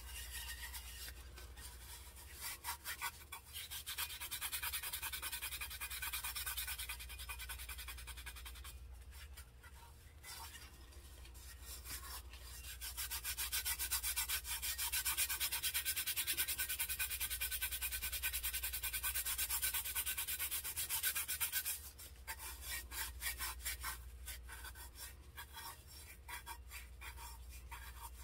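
Fast, repeated rubbing on a glitter-coated tumbler, its strokes louder through the middle stretch, with a short pause about ten seconds in.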